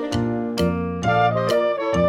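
Background music: an upbeat instrumental with a steady beat and pitched melody notes.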